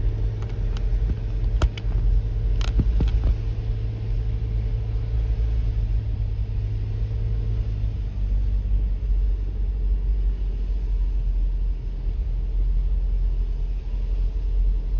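Car driving slowly, a steady low rumble of engine and tyres, with a few sharp clicks about two to three seconds in.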